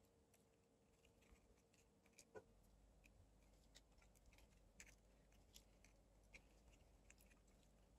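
Near silence, broken by faint scattered small clicks of pliers pressing a potentiometer's metal housing clips closed. The most noticeable click comes about two and a half seconds in.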